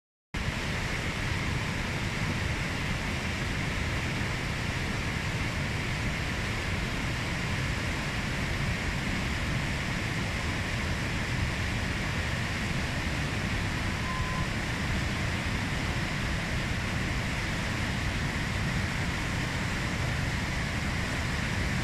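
A Pyrenean mountain river, the Gave, in flood: a steady, unbroken rush of fast, churning floodwater.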